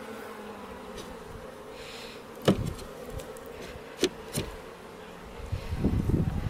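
Honey bees buzzing steadily at an opened hive. There are sharp knocks about two and a half and four seconds in, and scraping and rustling near the end.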